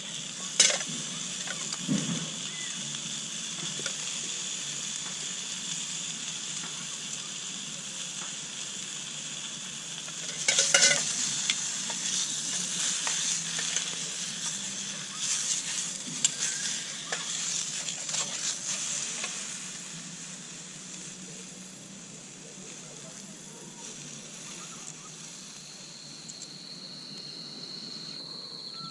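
Food sizzling in a pan as it is stirred, with utensils scraping and clinking against it now and then. The sizzle eases after about twenty seconds, and a steady high insect chirr sets in near the end.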